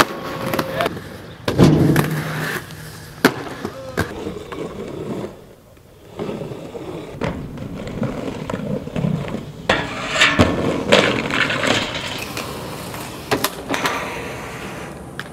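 Aggressive inline skates rolling on concrete and brick, with many sharp clacks and knocks from landings and from hard wheels and frames striking the ground and rails.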